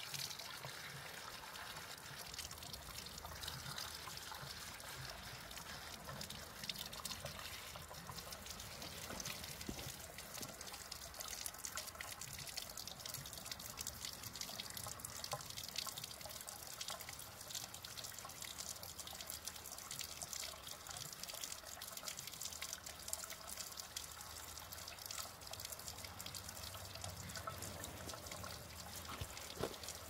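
Spring water trickling and splashing steadily from a hose among rocks, a continuous light patter of running and dripping water.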